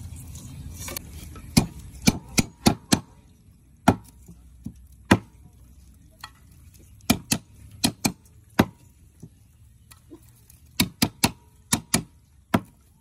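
Meat cleaver chopping lemongrass stalks on a wooden stump chopping block: about twenty sharp chops in uneven clusters. A moment of water sloshing at the start, from crabs being washed in a bowl.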